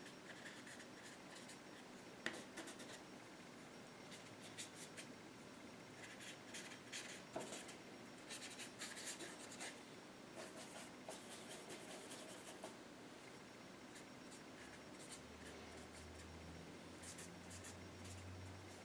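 Faint, scratchy strokes of a paintbrush working and rubbing acrylic paint into the painting, softening the edges of the clouds.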